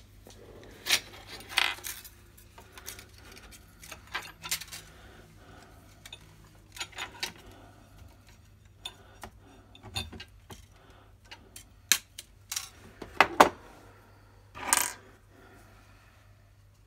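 Small metal hand tools such as tweezers and pliers clicking, tapping and clinking on a workbench as they are picked up and handled, irregularly, with a brief scrape near the end.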